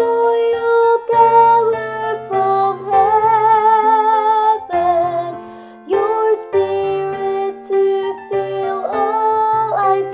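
Female soprano voice singing a choir part over instrumental accompaniment, holding some long notes with vibrato.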